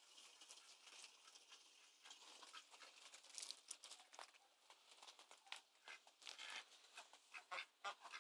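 Near silence with faint scattered crackles and clicks, coming more often from about three seconds in.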